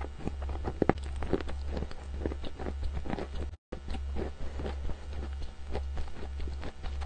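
A mouthful of chalk being chewed close to the microphone: irregular crunching and wet mouth clicks over a steady low hum, with a split-second break in the sound about halfway through.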